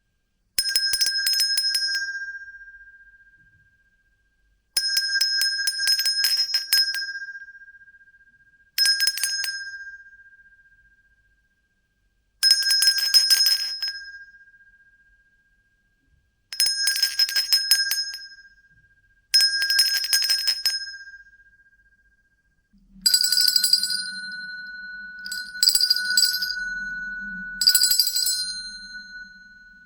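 A hand bell shaken in short bursts: each burst is a quick flurry of clapper strikes that leaves one clear pitch ringing and fading away, about every three to four seconds. In the last several seconds a slightly lower-pitched bell rings three more bursts over a faint low hum.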